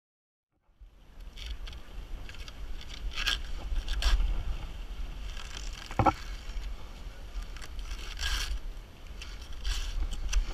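Wind rumbling on the camera microphone, with scratchy rasps of a hand pruning saw and dry Mexican fan palm fronds, and one sharp crack about six seconds in. The sound cuts in after nearly a second of silence.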